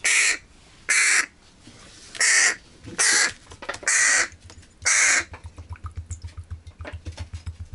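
Hooded crow fledgling giving six loud begging caws about a second apart, mouth gaping: a hungry chick calling to be fed. The calls stop about five seconds in, leaving only a faint rapid low pulsing.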